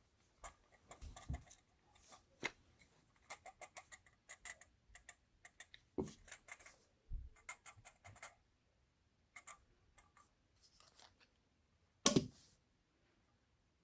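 Camera lens component clicking: irregular small clicks and ticks in quick clusters, with one louder knock about twelve seconds in.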